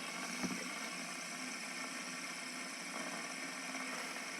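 Two fidget spinners spinning at once on their ball bearings, a steady whirring hum.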